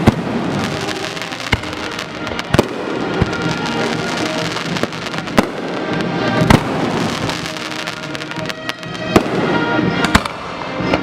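Aerial fireworks bursting with sharp bangs at irregular intervals over steady crackling, with a quick run of several bangs near the end; music plays underneath.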